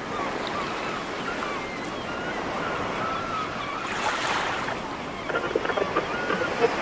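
Ocean surf washing steadily onto the shore, with a wave breaking about four seconds in and seagulls calling in the distance. A run of short knocks starts a little after five seconds in.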